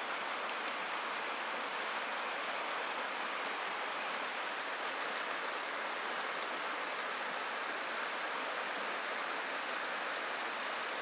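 Rocky trout stream rushing over riffles and boulders: a steady, unbroken rush of water.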